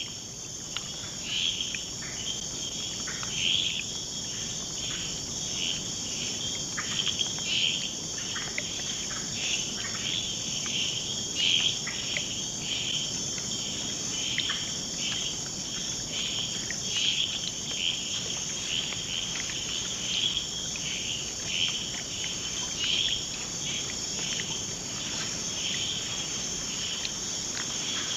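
Rainforest night ambience: a steady, shrill chorus of insects, with short chirping calls recurring irregularly about once or twice a second.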